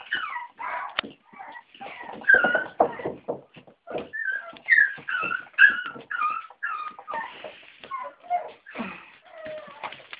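West Highland White Terrier puppies whimpering and yipping: a rapid, continuous string of short, high whines, most of them falling in pitch.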